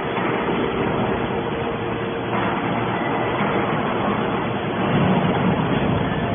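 Hydraulic baler running: a steady mechanical noise from the motor and hydraulic pump with a constant hum, getting a little louder about five seconds in.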